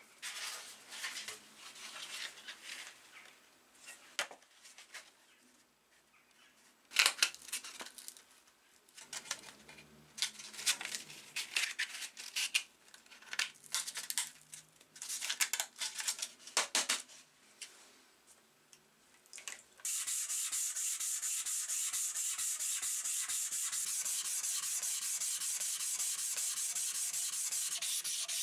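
Sandpaper being handled and clamped into a hand sanding block, with scattered rustles and a sharp click about seven seconds in. From about twenty seconds, steady back-and-forth wet sanding of a steel hammer head with the block, a continuous hissing scrape.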